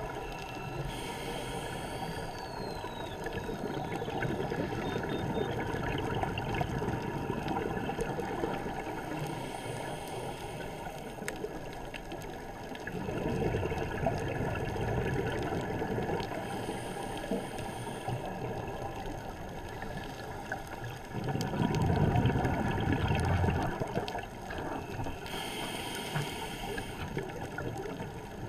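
Underwater ambience heard through a dive camera's housing, with a scuba diver breathing: short regulator hisses every several seconds and rumbling bursts of exhaled bubbles, the loudest near the end.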